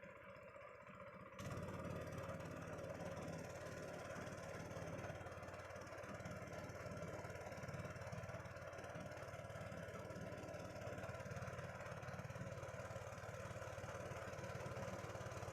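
Small boat engine running steadily, getting suddenly louder about a second and a half in and holding an even drone after that.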